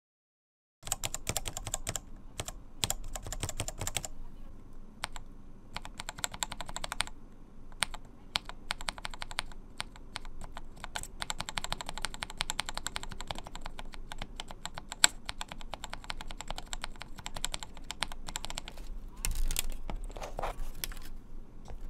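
Single keycap on a tactile brown mechanical keyboard switch in an RK68 keyboard with its other keycaps removed, pressed over and over in quick runs of clicks with short pauses between: the stock Huano brown switch first, then a lubed Gateron brown switch.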